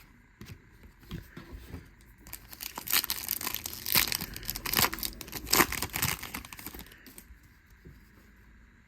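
Baseball card pack wrapper being crinkled and torn open by hand, a dense crackling rustle for several seconds in the middle.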